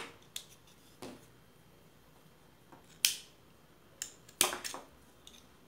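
Crochet yarn and tools being handled while the blue yarn is fastened off: a few short, sharp clicks, the loudest about three seconds in and a cluster of them near four and a half seconds.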